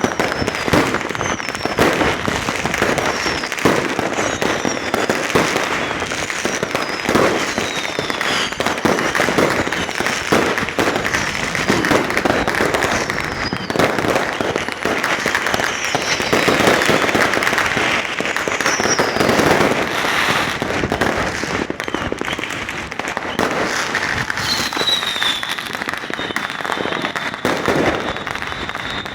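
Many fireworks and firecrackers going off without a break, a dense run of bangs and crackling. Whistling rockets now and then give short whistles falling in pitch, and one longer whistle is held near the end.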